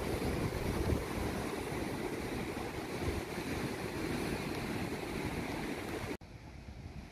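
Steady rush of seaside wind on the microphone and surf, dropping suddenly to a quieter rush about six seconds in.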